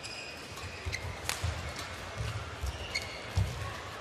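Badminton rally on an indoor court: a racket strikes the shuttlecock with a sharp crack about a second in, amid the repeated thuds of players' footsteps and short squeaks of court shoes.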